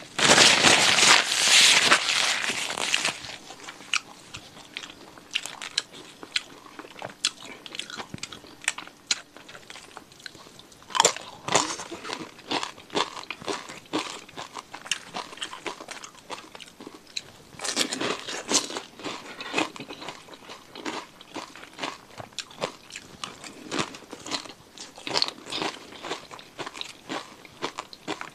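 A person chewing and crunching food close to the microphone: a loud run of crunching for the first three seconds, then softer chewing clicks with louder crunchy bites about eleven, eighteen and twenty-five seconds in.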